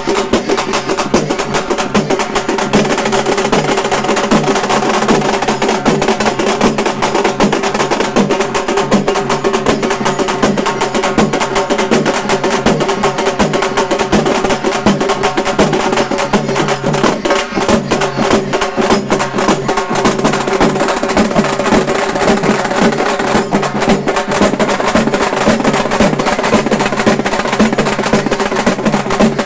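Halgi frame drums played fast with sticks in a dense, unbroken rhythm, with a steady held note sounding over the drumming.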